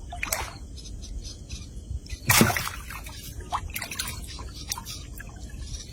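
Water dripping and sloshing in small, irregular splashes, with one louder splash a little over two seconds in.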